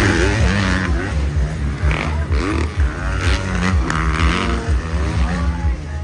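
Several motocross dirt bikes racing past, their engines revving up and down in pitch as the riders work the throttle through the jumps and corners.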